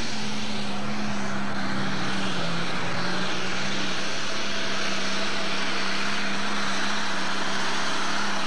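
A pulling tractor's diesel engine running flat out under load as it drags the weight sled, a loud steady drone holding one pitch.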